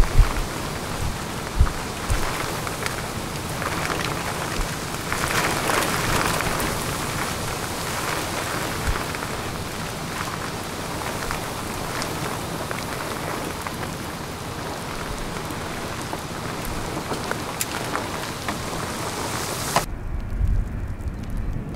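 Steady heavy rain and wind noise, with a few low thumps near the start. About twenty seconds in it cuts off sharply to a quieter, low rumble of wind on the microphone.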